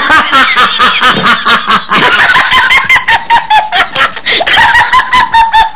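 A man and a woman laughing loudly and heartily: a continuous run of quick ha-ha pulses, several a second.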